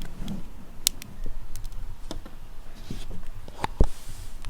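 Scattered light clicks and taps of kitchen containers and utensils being handled, with a dull knock near the end.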